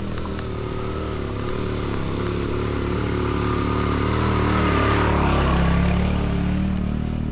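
Motorbike engine running as it approaches, growing louder to a peak about five to six seconds in, then starting to fade as it passes.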